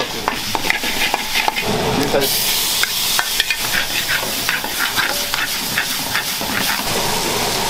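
Food frying and sizzling in an aluminium pan on a gas range while a metal spoon stirs and clinks against the pan. About two seconds in the sizzle turns louder and brighter.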